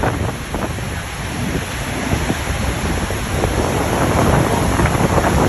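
Storm noise: heavy rain with wind buffeting the microphone and a low rumble, growing louder about halfway through.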